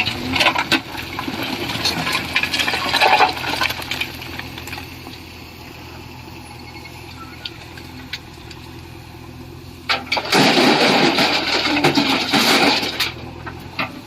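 Diesel engine running steadily under a rushing, rattling clatter of stone tipped from a JCB 3DX backhoe loader's bucket into a tractor trailer. The stone pours through the first few seconds and again in a louder rush from about ten to thirteen seconds in, with only the engine between.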